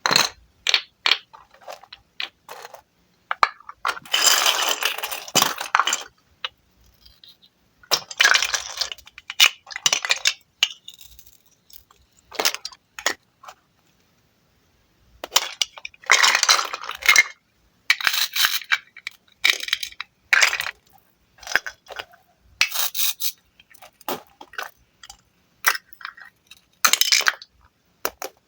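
Wooden fruits cut apart with a knife: bursts of crisp clicks and clattering wooden pieces, each a second or two long, with short pauses between them.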